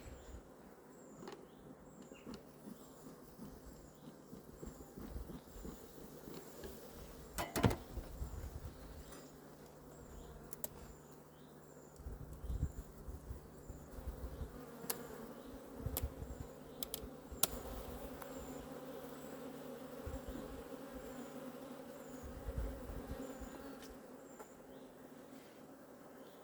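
A colony of honeybees buzzing in an open hive as it is inspected, a steady hum that grows fuller in the second half, with occasional sharp knocks.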